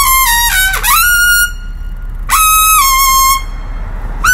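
A solo trumpet plays loud high-register phrases. A held high note drops off into a fall, then scoops up to a higher note. After a short breath, a two-note phrase steps down, and another high note begins right at the end.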